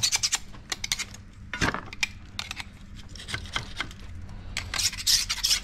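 Metal hand work on a corn header's chopper knives: quick scraping strokes and light metallic clinks in bursts, busiest in the first second and again near the end, with a quieter stretch between.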